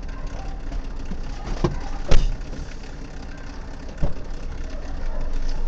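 Car engine idling steadily, heard from inside the cabin, with three sharp knocks, the loudest about two seconds in.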